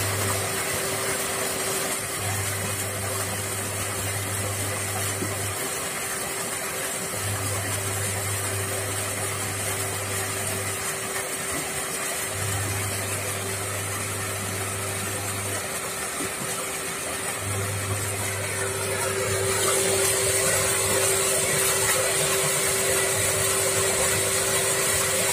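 Water gushing from an electric pump's discharge pipe into a brick water tank, a steady rush of splashing water. Under it runs a steady hum from the pump.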